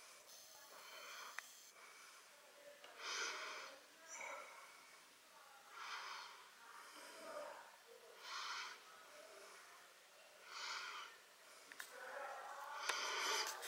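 A person breathing, with a breath about every two and a half seconds, and a few faint clicks and crackles from a clear plastic blister pack being handled, mostly near the end.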